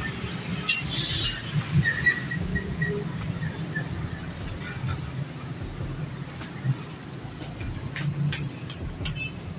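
Street traffic noise: a steady low rumble of engines, with a brief high-pitched sound about a second in.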